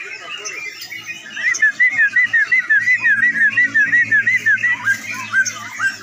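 Several caged crucukan (sooty-headed bulbuls) singing together in a rapid, unbroken string of short whistled notes that rise and fall, the non-stop 'ropel' singing judged at bird contests. The notes get louder about a second and a half in, and a low steady hum runs underneath from about halfway.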